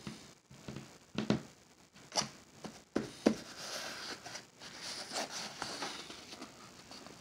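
Small cardboard shipping box handled on a wooden table: several sharp knocks and taps in the first few seconds, then fingers rubbing and scraping over the cardboard and its paper label as the box is picked up and turned.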